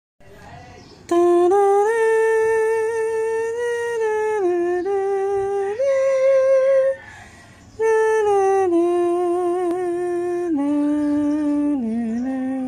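A slow melody hummed in long held notes that step up and down, in two phrases with a short pause near the middle.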